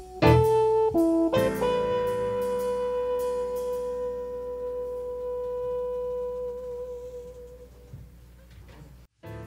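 Jazz music: a few quick notes, then one long held note that wavers near its end and slowly fades, with a brief dropout just before the end.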